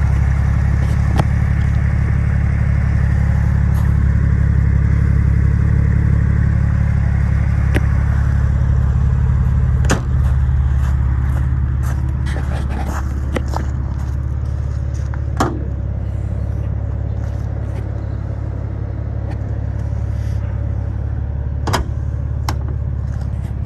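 Porsche 911 (996) 3.6-litre flat-six engine idling steadily, louder and brighter in the first eight seconds or so, then more subdued. From about ten seconds in, scattered crunching footsteps on gravel.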